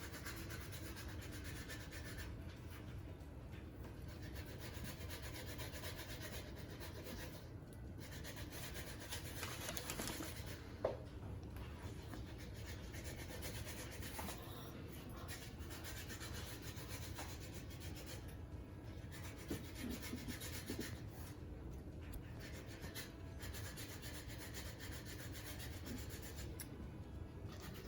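Faint rubbing and handling noises over a steady low hum, with a small click about eleven seconds in.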